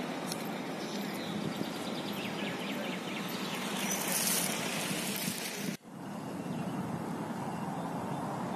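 Outdoor city ambience: a steady hum of road traffic. It drops out suddenly for a moment about six seconds in, then resumes.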